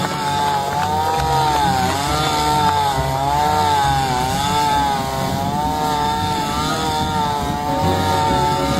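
Small engine of a grass-cutting machine running continuously under load, its pitch rising and falling as it cuts.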